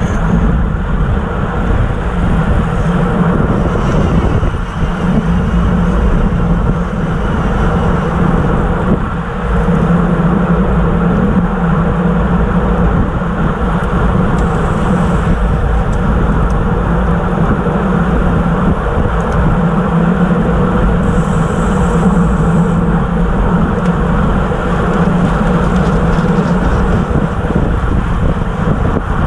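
Steady wind and road noise on a bike-mounted camera moving at about 27 to 29 mph on a road bike.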